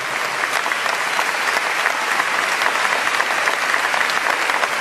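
A large crowd applauding steadily: a dense clatter of many hands clapping at once.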